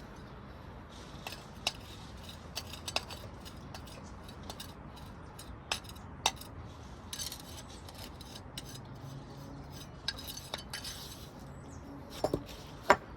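Patio pavers clinking and knocking against one another as they are handled and set in place, with a few softer scrapes; scattered sharp knocks, the loudest in a quick cluster near the end.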